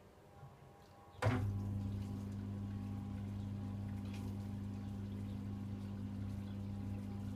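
Samsung WF6700 washing machine, mostly quiet at first, then a click about a second in and a steady electrical hum with water running, as the machine draws water again during the softener rinse.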